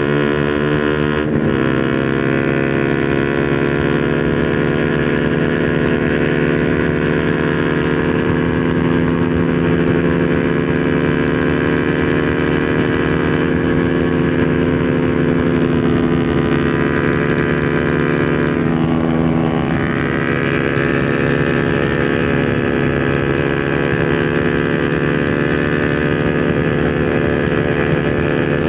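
Honda RS150R's single-cylinder four-stroke engine through an Espada 32mm open exhaust, running steadily under way. The engine note rises just after the start, then dips and climbs again about two-thirds of the way through.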